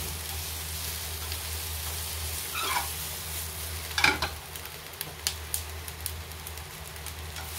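Food sizzling steadily in a frying pan. Two short falling squeaks, the second the loudest moment, come about three and four seconds in, and light clicks follow.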